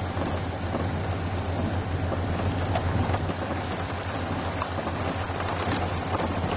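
Rain from a thunderstorm, with many drops ticking sharply against a nearby surface over a steady low hum.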